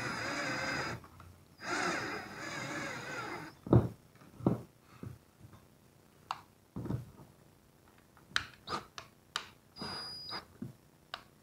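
Cordless drill driving a short screw through a metal keyhole hanger into wood, run in two bursts with its pitch wavering as the trigger is eased. Sharp clicks and knocks follow from the bit and screw being handled.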